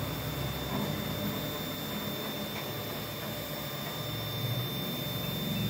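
Arduino-controlled mini CNC router running a G-code test: its stepper motors drive the axes with a low hum that shifts in pitch as each move changes, over a steady high whine.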